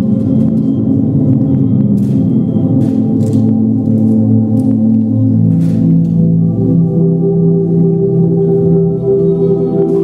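Ambient drone music of many overlapping sustained ringing tones, changing to a new chord about halfway through, with a few faint clicks in the first half.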